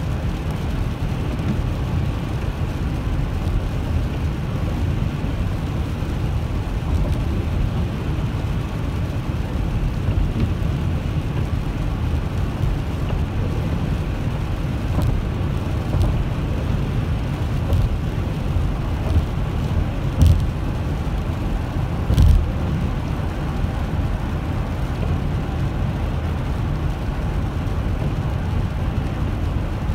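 Steady low road rumble of a car driving on a wet highway, heard from inside the cabin, with tyre and engine noise. A few brief knocks come about two-thirds of the way through.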